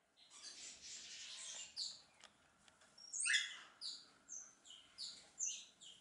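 Small birds chirping: a hissing rush for the first couple of seconds, then a quick run of short, high chirps about two a second.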